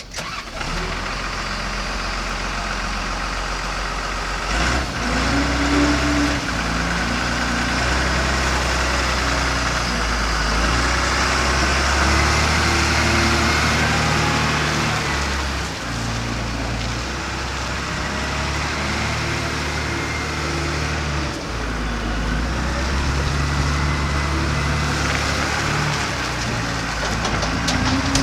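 Komatsu WA300-3 wheel loader's diesel engine running, its pitch stepping up and down several times as the revs change.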